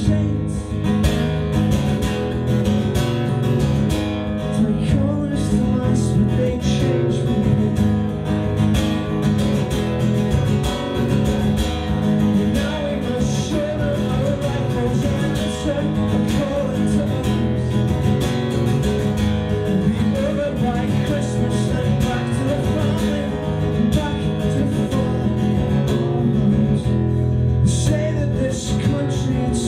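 Acoustic punk song played live: a steadily strummed acoustic guitar with a man singing into a microphone.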